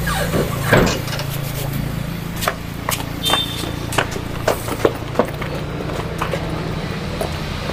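A steady low engine hum, with irregular footsteps and small knocks over it.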